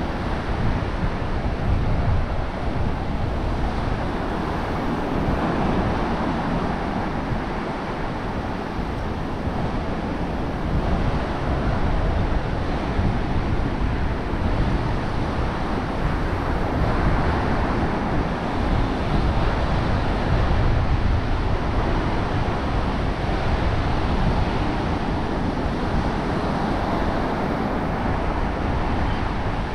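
Ocean surf washing on the beach, mixed with wind buffeting the microphone in a steady low rumble.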